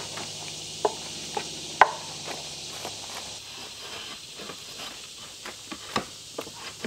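Drawknife peeling bark off a wooden slab: scraping strokes broken by sharp cracks as the bark breaks away, the loudest a little under two seconds in.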